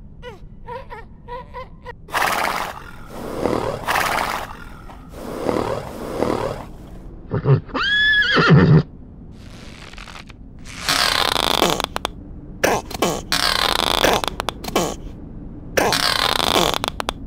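A horse snorting and neighing: loud blowing snorts, then several whinnies with falling pitch in the second half.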